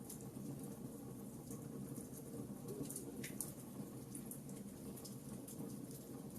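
Wood fire crackling in a fireplace: scattered small pops and snaps over a steady low rumble of the flames, with a brief falling hiss about three seconds in.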